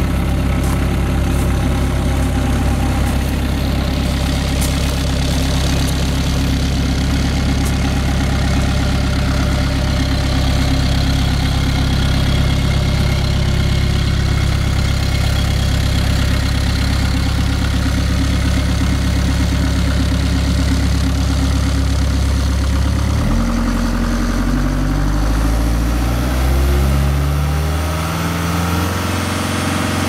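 Bobcat S185 skid steer's diesel engine idling steadily, then throttled up a little over three-quarters of the way through, its pitch climbing in steps before holding at a higher speed.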